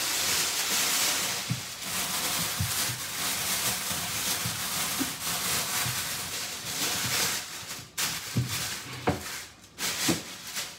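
Thin plastic trash bag rustling and crinkling steadily as it is handled and fitted into a kitchen bin, easing off after about eight seconds, followed by a few soft knocks.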